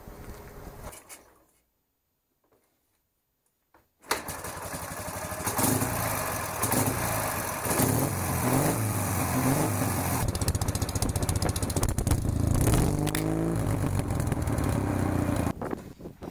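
Ural M62 motorcycle's flat-twin engine running, kicking in abruptly about four seconds in after near silence. It is revved up and down several times in the middle and cuts off near the end.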